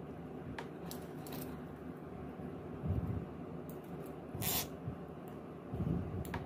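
Hand-handling sounds of a plastic cable tie being threaded around a wound enamelled-copper crossover coil: light clicks, a few soft knocks, and a short scrape about four and a half seconds in.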